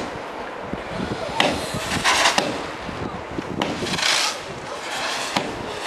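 Thunder from a close lightning storm: a sharp crack at the start and another about three and a half seconds in, with bursts of crackling, rushing noise a second or so long in between.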